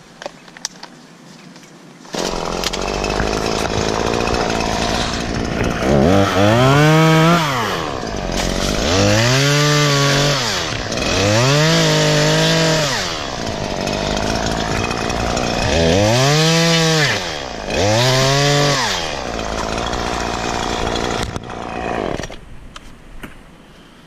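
Stihl MS 150 two-stroke top-handle chainsaw. It starts running about two seconds in, revs up and back down five times, and stops near the end.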